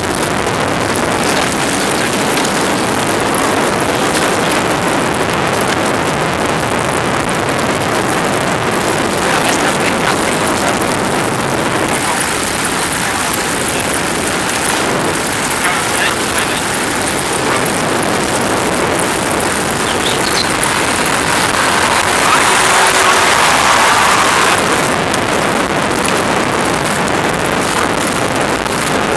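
Steady road and wind noise of a moving vehicle, a continuous rushing hiss that swells slightly near the end.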